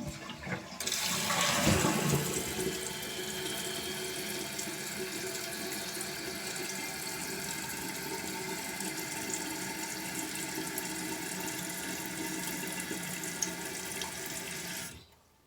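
A 1993 Kohler Wellworth Lite toilet flushing, with the lid off its tank: a rush of water, loudest about two seconds in. Then a steady hiss as the tank refills through the fill valve, which shuts off abruptly near the end.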